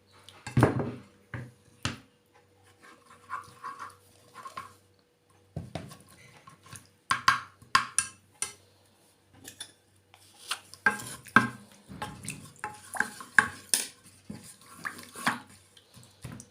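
Spoon and kitchenware clinking and knocking against a pot and dishes in irregular, scattered taps while honey is added to a herbal syrup.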